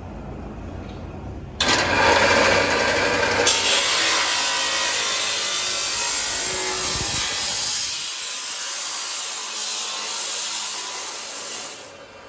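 Belt-driven abrasive cut-off saw humming, then about a second and a half in its disc bites into a pressed sheet-steel door frame. A loud grinding cut follows for about ten seconds, easing off near the end.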